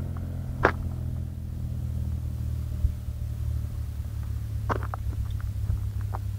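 Ducati 998S's 90-degree V-twin through an aftermarket Sil exhaust, running at low revs as a steady deep rumble. A sharp click comes about a second in and another later on.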